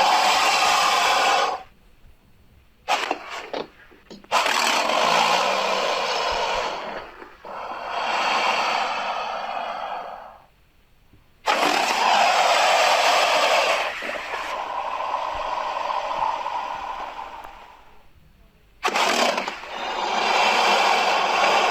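A string of harsh, raspy hisses, each a second or two long with short pauses between them, sounding like the creature noises of the Alien and Predator films.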